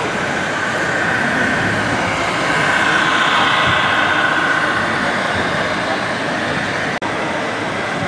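Whine of a radio-controlled model MAN truck's electric drive motor and gearbox as it pulls a tipper trailer. The whine swells for a few seconds in the middle, then fades, over a steady din of exhibition-hall noise.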